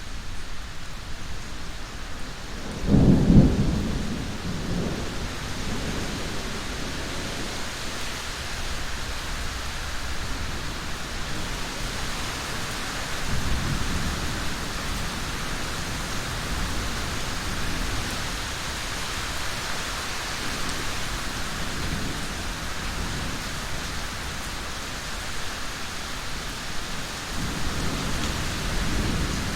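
Steady rain falling, with thunder rumbling over it: a loud rumble about three seconds in that dies away over a few seconds, and fainter rumbles around halfway and near the end.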